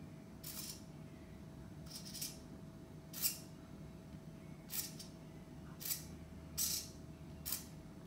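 Small steering servo of an Arduino RC car whirring in about seven short spurts as the front wheels are steered back and forth.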